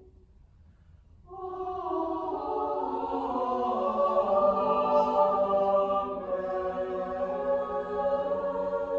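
Mixed choir singing: after a brief pause of about a second, the voices come in together on a sustained chord that swells and holds.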